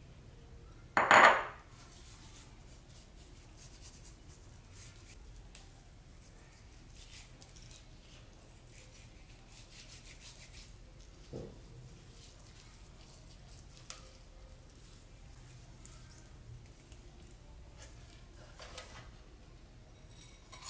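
A single loud clank of cookware about a second in, then faint rubbing and patting as hands work a dry spice rub into raw chicken skin in a cast iron skillet, with one softer knock near the middle.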